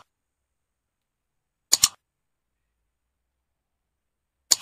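Computer mouse-click sound effects, each a quick double click like a press and release. They come twice, about three seconds apart, with dead silence between.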